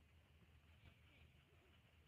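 Near silence with a faint low background hum.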